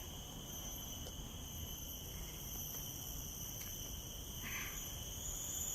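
A steady, high-pitched insect chorus from the surrounding woodland, several unbroken shrill tones held throughout, over a low background rumble.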